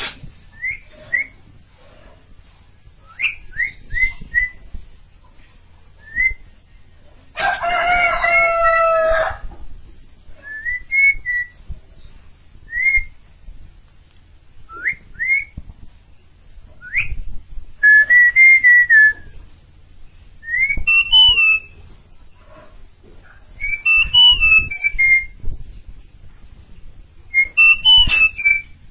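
Caged Asian pied starling (jalak suren) singing: short whistled notes and warbling phrases. About seven seconds in comes one loud, harsh drawn-out call of about two seconds.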